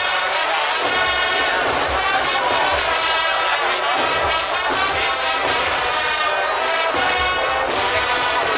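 An Andalusian Holy Week agrupación musical playing a processional march: massed brass playing a sustained melody over a steady beat of low drums.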